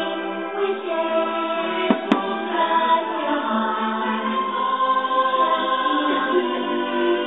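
Fireworks-show soundtrack: orchestral music with a choir singing sustained notes, and two sharp firework bangs close together about two seconds in.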